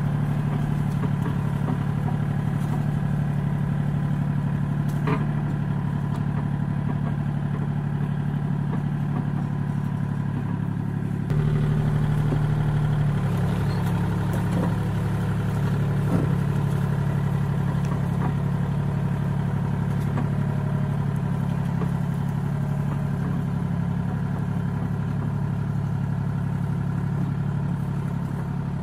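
Kubota L2501 compact tractor's three-cylinder diesel engine running steadily as it pulls a box blade through dirt, with a few sharp knocks and clanks. The engine gets louder and slightly higher about eleven seconds in, then eases back a little as the tractor pulls away near the end.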